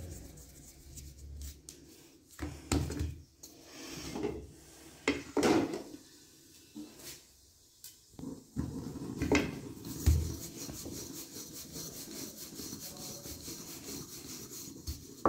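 A few soft knocks and short rubs as the dough is handled on a rolling board, then from about eight and a half seconds in, a wooden rolling pin rolling back and forth over the flattened dough with a steady rubbing sound and a knock near ten seconds.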